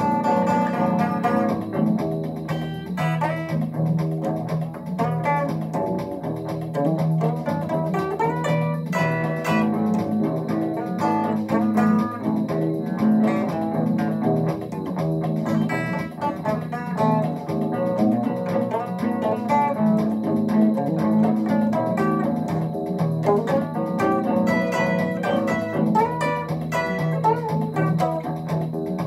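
Red semi-hollow-body electric guitar playing an instrumental tune without pause: plucked single notes and chords over a steady low bass line.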